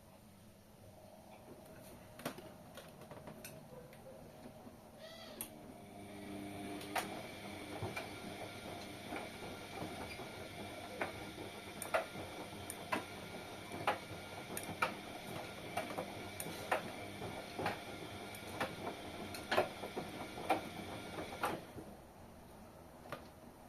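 Front-loading washing machine running: a motor hum with several tones starts about five seconds in, with sharp clicks about once a second, and cuts off abruptly near the end.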